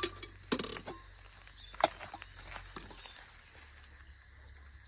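Steady high-pitched chirring of insects, likely crickets, with a few sharp clicks near the start and about two seconds in.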